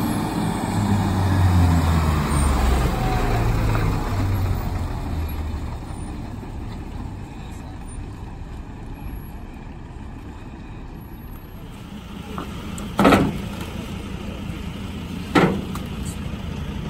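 Fire engine's heavy diesel engine rumbling as the truck drives past, fading away over several seconds. Later, two sharp knocks about two seconds apart.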